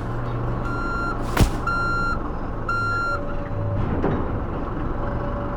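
Mini excavator's engine running with its travel alarm beeping three times, about a second apart, and a single sharp knock between the first and second beeps.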